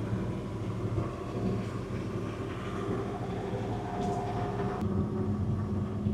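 PAZ bus engine running steadily under load as the four-wheel-drive bus crawls uphill in first gear. A brief higher whine joins the drone about four seconds in.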